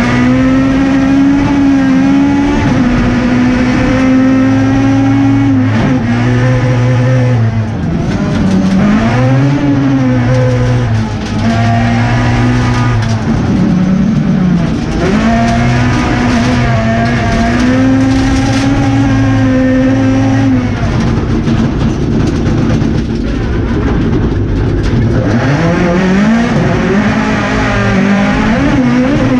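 Toyota Starlet rally car's engine heard from inside the cabin, pulling hard and rising in pitch, then dropping at each gear change, over and over as the car is driven at rally pace.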